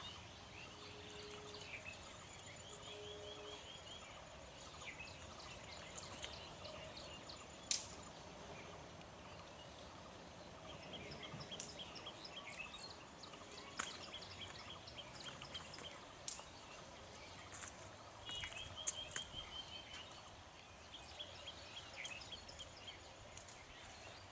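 Faint outdoor ambience: birds calling in runs of quick repeated high notes, scattered throughout, with a few sharp clicks. No clear locomotive engine sound stands out.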